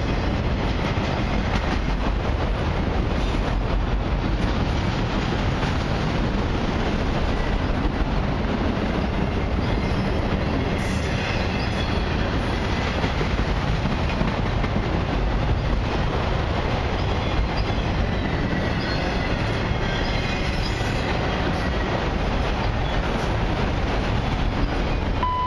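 Long freight train of autorack cars rolling past: a steady rumble and rattle of steel wheels on the rails, with faint high wheel squeals now and then in the second half.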